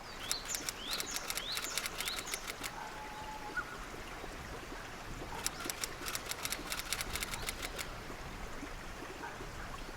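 Forest ambience: a bird gives a few quick rising chirps near the start over a soft steady background hiss. Two spells of rapid, sharp clicking, a few seconds each, sound in the first three seconds and again from about five and a half seconds in.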